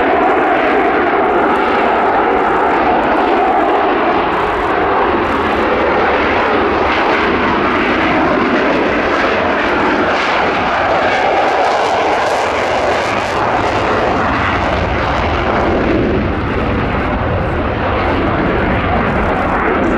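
Two-seat F/A-18 Hornet fighter jet taking off, its twin General Electric F404 turbofans at full power with afterburner: a loud, steady jet roar through the takeoff roll and lift-off.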